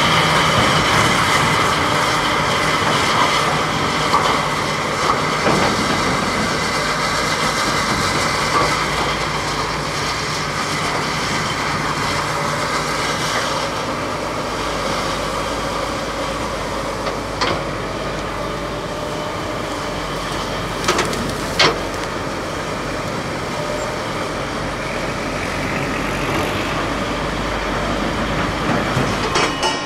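Komatsu PC300LC hydraulic crawler excavator working close by, its diesel engine running steadily under load as the bucket digs into mud. A few sharp clanks come past the middle.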